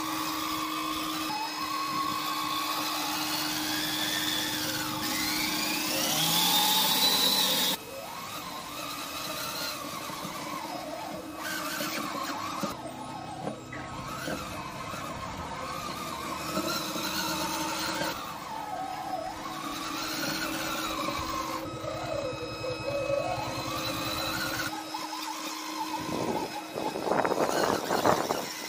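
Electric drive motor and gears of a radio-controlled wooden model truck whining, the pitch rising and falling again and again as it speeds up and slows down, over a steady low hum. The sound breaks off suddenly a few times.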